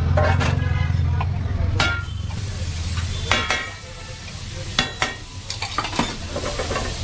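Steel spatula scraping a hot iron pan with a ringing metallic squeal, then a steady hiss and sizzle as water poured into the hot pan turns to steam, broken by a few sharp metal clinks.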